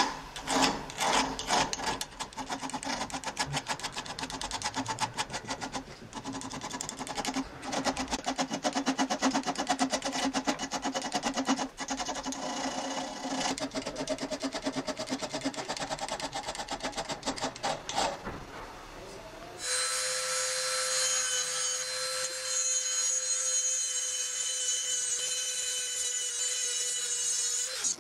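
A hand file rasps in quick strokes across the steel ball peen of a hammer head held in a bench vise. A little over two-thirds of the way through, the filing gives way to the steady whine of a small handheld rotary tool.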